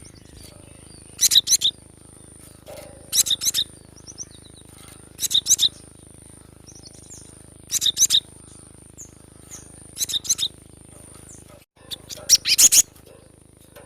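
Cinereous tit (gelatik batu) calling: short bursts of three or four quick, sharp high notes, repeated about every two seconds, six times.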